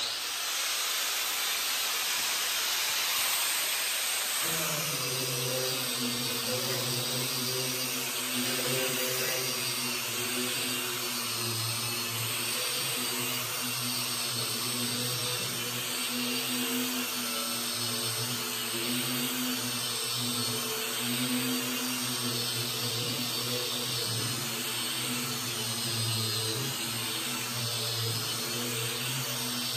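Electric angle grinder fitted with an about 80-grit flap disc, sanding the surface rust off the steel top of a welding table. It runs steadily, a high hiss with a low hum joining about four seconds in.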